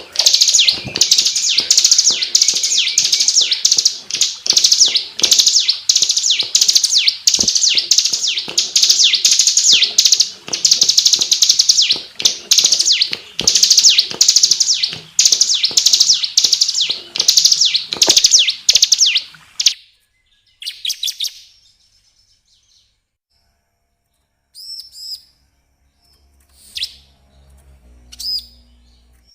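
Bar-winged prinia (ciblek) singing a dense, rapid string of high, sharp chirps, several a second, for about twenty seconds. The song then stops abruptly, followed by a few short, isolated bursts of chirps after a pause.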